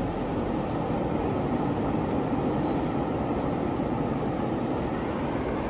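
Steady low rushing noise of wind on the microphone at the seashore, with no distinct events.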